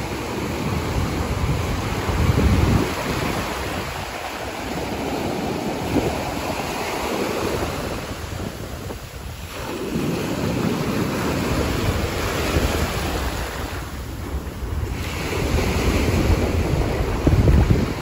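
Small waves breaking and washing up over a sandy beach, the surf swelling and easing as each wave comes in and draws back. Wind buffets the microphone with a low booming, strongest about two and a half seconds in and again near the end.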